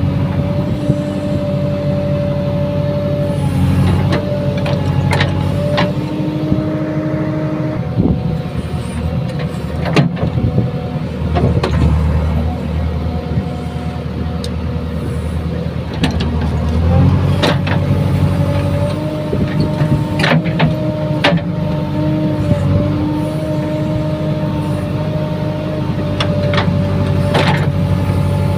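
JCB 3CX backhoe loader's diesel engine running as the backhoe digs a trench in sandy soil. The engine's pitch and load step up and down as the arm works, with occasional sharp knocks.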